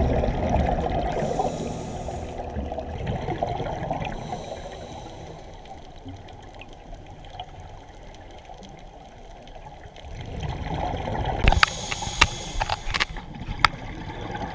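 Water splashing and trickling, fading slowly. Near the end come four or five sharp knocks in quick succession.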